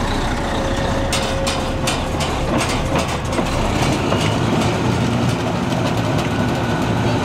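Diesel engine of a semi truck running steadily at low revs. A few sharp clicks and knocks come in the first few seconds.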